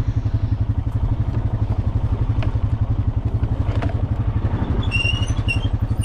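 Quad bike engine idling in neutral with an even, low pulsing beat. A few short high squeaks come near the end.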